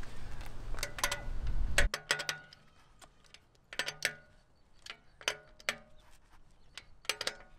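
Socket ratchet clicking in short runs while the wheel's lug bolts are loosened. A low hum stops about two seconds in.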